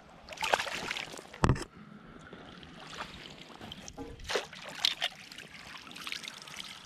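Water splashing in several short bursts as a small bass thrashes at the surface and is scooped into a landing net, with one sharp thump about a second and a half in.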